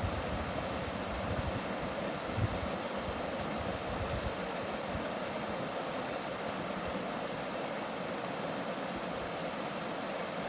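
Mountain stream water rushing over rocks, a steady, even rush, with some low rumbling in the first few seconds.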